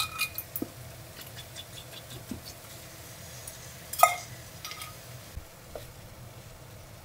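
Stir-fried vegetables and bacon frying quietly in a stainless frying pan, with scattered small ticks and taps of the utensils. About four seconds in, one sharp metallic clank with a brief ring off the pan as a white block is added.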